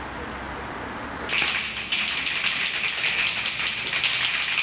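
Aerosol spray-paint can hissing in one long spray that starts about a second in, with a rapid, regular flutter running through the hiss.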